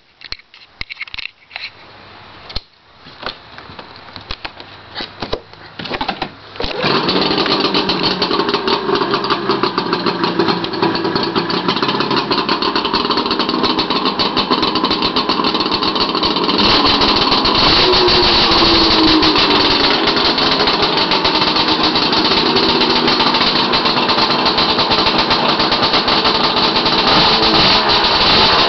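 Arctic Cat ZRT600 snowmobile's three-cylinder two-stroke engine on triple pipes: irregular pops and bangs for several seconds, then about seven seconds in it catches and runs loud and continuously. It gets louder still about halfway through, with a brief rise in pitch as it revs.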